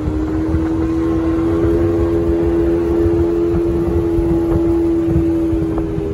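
A small speedboat's outboard motor runs at a steady cruising speed under way, its drone rising slightly in pitch about a second in and then holding, over a low rumble.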